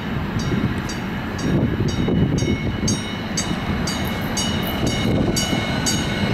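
St. Louis MetroLink light rail train rumbling along the track as it approaches the platform, growing slightly louder as it nears. A bell dings steadily about twice a second over the rumble.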